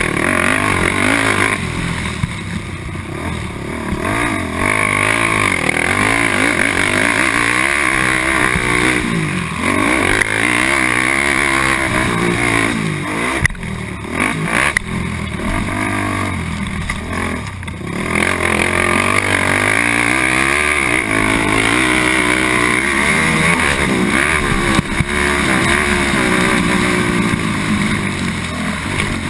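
Honda TRX450R quad's single-cylinder four-stroke engine under race throttle, revving up and down as the rider works the track, with the engine note dropping off briefly a few times. Heard from a helmet camera on the rider.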